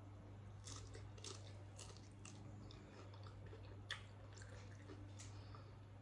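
A person chewing a mouthful of loaded nachos: faint crunches and wet mouth clicks, with a sharper click about four seconds in, over a low steady hum.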